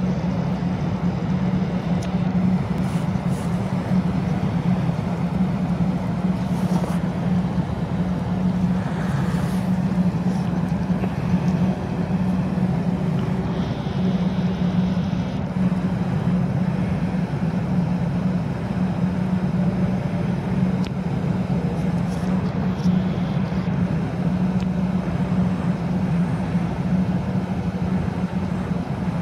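A steady, low mechanical drone from a running engine that holds one even level throughout.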